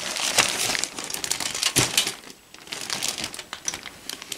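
Clear plastic bags around plastic model-kit parts sprues crinkling and crackling as they are handled, full of small sharp clicks, in two stretches with a short lull about halfway through.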